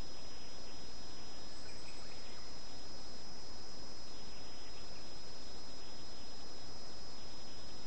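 Steady outdoor background hiss with a constant thin high whine, as picked up by a trail camera's microphone; a few faint, brief bird chirps come about one and a half seconds in.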